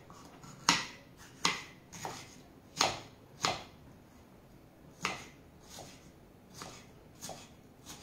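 Kitchen knife chopping a red bell pepper on a wooden cutting board: irregular sharp knocks of the blade hitting the board, about one or two a second, the loudest in the first few seconds and softer ones later.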